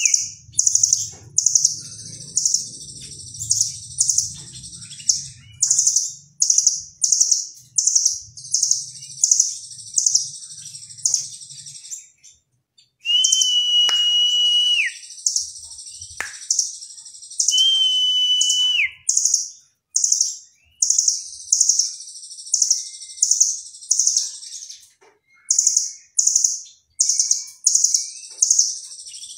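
Caged blue nuthatch (rambatan Doraemon) calling: short, very high chirping trills repeated about once a second, with two longer held whistles near the middle. The bird is kept for song phrases that resemble the cililin's.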